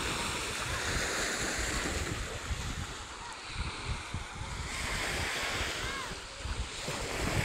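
Small sea waves breaking and washing up on a sandy shore, with wind rumbling on the microphone.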